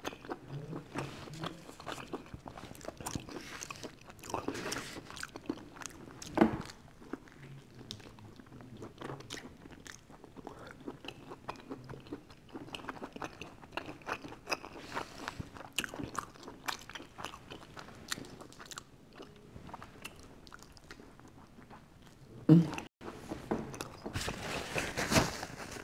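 Close-up chewing and biting of a pizza slice, with wet mouth sounds and crunching of the crust. There are a couple of louder moments, about six seconds in and near the end.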